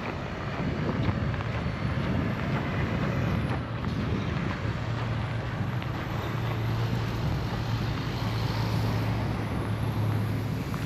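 A motor vehicle's engine running steadily amid traffic noise, with a low hum that grows stronger about halfway through.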